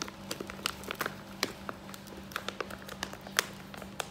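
Clear plastic standing pouch crinkling as hands handle it and work along its top seal: irregular small crackles with a few sharper clicks.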